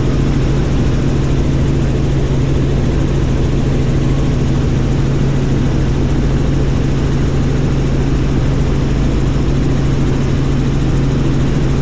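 Cabin noise of a Bell helicopter in flight: a loud, steady drone of engine and rotor with a strong low hum.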